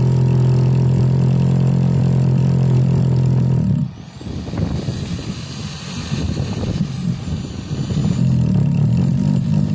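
Bauer SDS Max rotary hammer drilling into rock, running steadily with a strong hum, then about four seconds in the sound drops suddenly and carries on quieter and more uneven.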